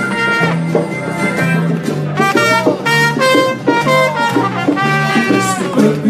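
Live band playing a blues with a trumpet playing the lead over a steady, repeating bass line; the trumpet bends and slides between its notes.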